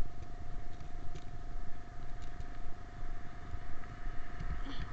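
Wind rumbling on the microphone, rising and falling in gusts, over a steady high-pitched whine, with a few faint clicks.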